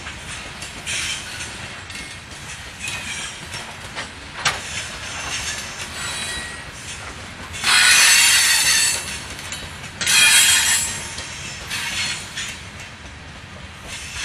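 Freight cars of a BNSF rock train rolling past with steady wheel rumble and clicking over the rail joints. Bursts of high-pitched wheel squeal recur every second or two, the longest and loudest about eight and ten seconds in.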